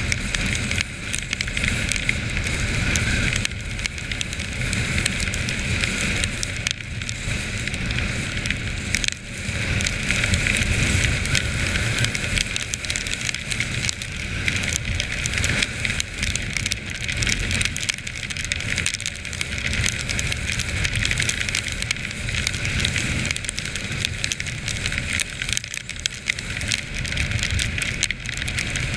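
Quad bike engine running as the ATV is ridden across snow, a low rumble under a constant crackling hiss.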